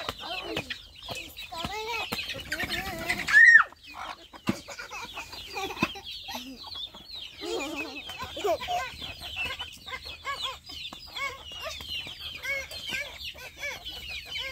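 A flock of domestic chickens clucking continually, many short overlapping calls. One loud, high cry stands out about three and a half seconds in.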